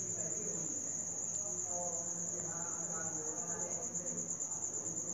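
Crickets chirping in a steady, high-pitched pulsing trill, with faint voices in the background.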